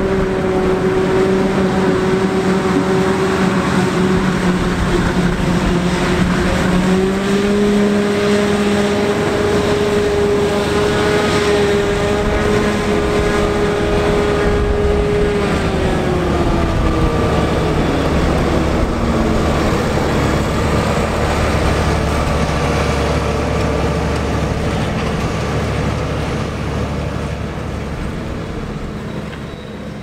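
CLAAS Jaguar 980 self-propelled forage harvester running under load while chopping corn: a steady machine whine over a deep hum. About sixteen seconds in, the whine falls in pitch over a few seconds as the machine winds down at the end of its pass, leaving a low rumble.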